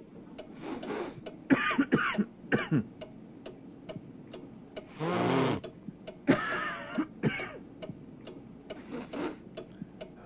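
A person's voice in a run of short gasping breaths and drawn-out voiced 'ah' sounds, the build-up to a sneeze. The longest and loudest comes about five seconds in. Faint regular ticking sounds under it.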